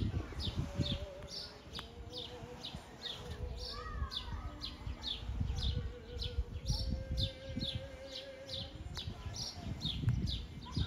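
A bird calling over and over with short, high downward chirps, about two to three a second, over a low irregular rumble of wind on the microphone.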